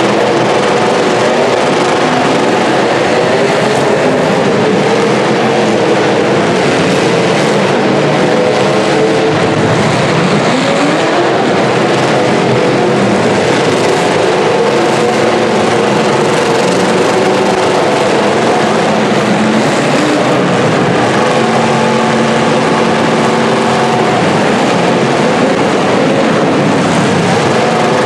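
Engines of several full-size demolition derby cars running at once, a continuous loud din of overlapping engine notes, with one engine revving up about ten seconds in.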